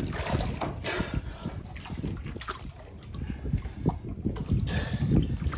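Muffled water churning and sloshing around a camera held at and under the surface of shallow sea water, with a low rumble and a few soft knocks from handling.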